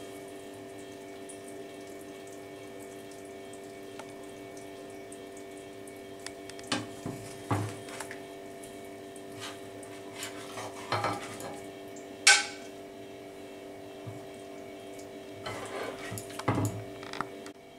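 A metal spoon scraping and knocking in a non-stick frying pan as cooked cauliflower is lifted out onto a plate: a few scattered scrapes, the loudest about twelve seconds in, over a steady hum.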